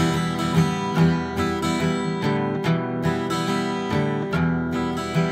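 Acoustic guitar strummed in a steady rhythm, playing the chords of a country rock ballad.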